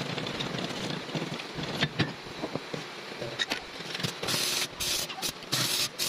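Workshop metalwork on a sidecar wheel and fender: scattered knocks and clicks of metal parts being handled, then several hissing bursts from about four seconds in.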